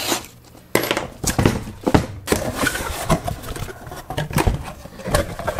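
Cardboard shipping box being cut and pried open by hand: a run of irregular scraping, tearing and rustling noises with sharp knocks, starting about a second in.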